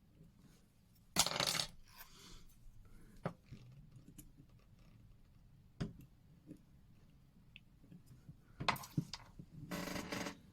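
Small metal clicks and clinks of watch parts and hand tools being handled on the bench: a short scraping burst about a second in, then a few single sharp ticks, and a rapid run of clicks near the end.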